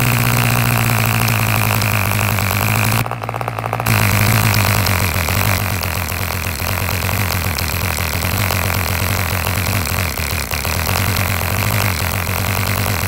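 Gotham Deezil single-cylinder two-stroke model diesel engine running fast and steady, spinning its propeller. About three seconds in it falters briefly, then picks up and runs on.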